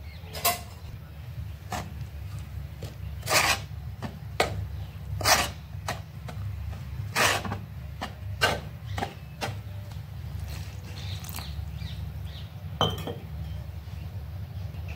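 Scattered sharp clinks and knocks of a steel spoon against a terracotta bowl, about ten of them at uneven intervals, over a steady low hum.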